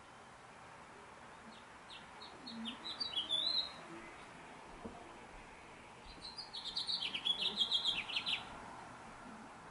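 Osprey calling: two bouts of rapid, high whistled chirps, each building in loudness. The first comes about two seconds in, and the second, longer one comes around six to eight seconds in.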